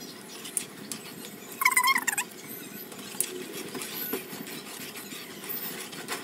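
Kitchen sounds at a cooking pot: a few light clicks and one short, high, wavering squeak about a second and a half in, which is the loudest sound.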